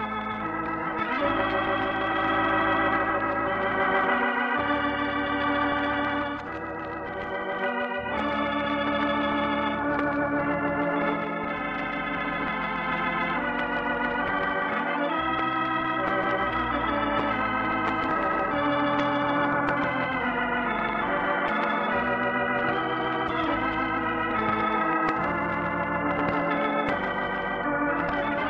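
Organ music playing sustained, wavering chords that change every second or two over a low bass line: the program's closing theme music.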